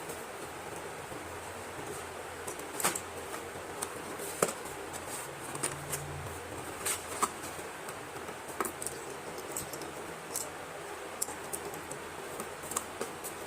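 Irregular light clicks, taps and small crinkles of slate pencils and their packets being handled, over a steady hiss.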